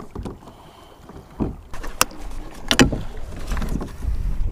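Choppy sea water sloshing against a plastic kayak hull, with wind on the microphone and two sharp knocks, about two seconds in and again a little before three seconds.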